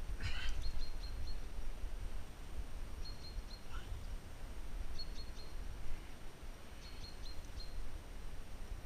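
Wind rumbling on the GoPro's microphone, with small birds chirping in short groups of quick high notes every second or two, and one brighter rising call near the start.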